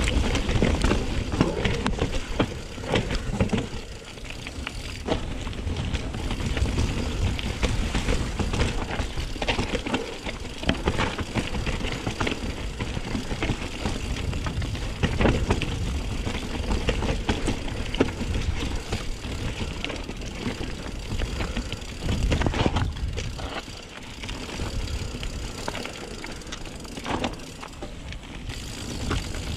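Mountain bike rolling over a rough trail: tyres on dirt and gravel, with frequent knocks and rattles from the bike over bumps and a low rumble underneath.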